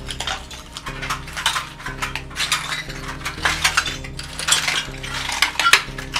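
Footsteps crunching over broken window glass, shards clinking and grinding underfoot in a quick, irregular run of sharp clicks.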